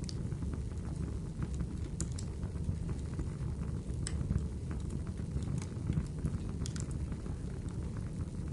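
Wood fire in a fireplace crackling: scattered sharp pops, several a few seconds apart, over a steady low rush of burning.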